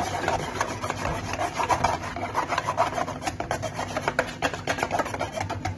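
Wire balloon whisk beating pancake batter in a large bowl: quick, continuous scraping and splashing strokes against the bowl, keeping an even pace, until they stop at the very end.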